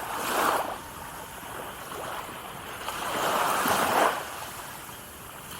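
Small waves breaking and washing up a beach: a short wash right at the start, then a larger one that builds from about three seconds in and drops away suddenly about a second later.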